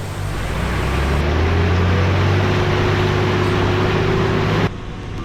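Four-wheel-drive engine working under load as the vehicle drives through a deep mud hole, with the wash of mud and water over its engine note. The engine sound builds over the first second or so, holds steady, then drops suddenly near the end.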